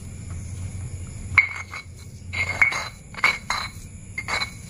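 Stone pestle grinding tempe and lemongrass paste in a stone mortar (cobek): a low rubbing scrape, broken from about a second and a half in by several sharp, ringing clinks of stone knocking on stone.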